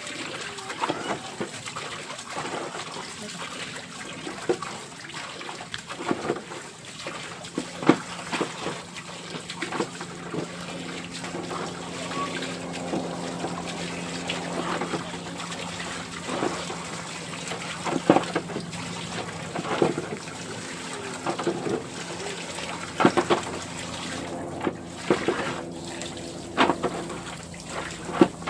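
Water trickling and splashing, with many short knocks and clatters throughout and a faint steady low hum underneath.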